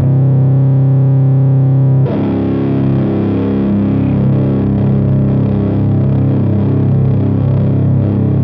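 Electric guitar through a Burden high-gain fuzz/distortion pedal playing a heavy drone: one distorted chord sustains, then a new chord is struck about two seconds in and rings on, held with long, thick sustain.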